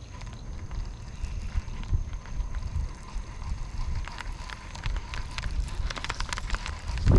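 Wind buffeting the microphone as a low rumble, with scattered light clicks and ticks that come thicker in the second half.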